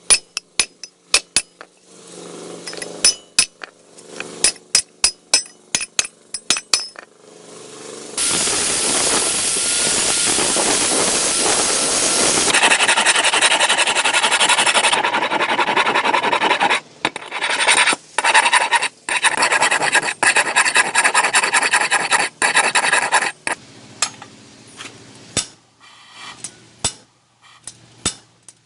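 An old steel hammer being filed or rubbed down by hand, with scattered clicks and taps at first, a stretch of steady, loud scraping, then runs of quick back-and-forth scraping strokes.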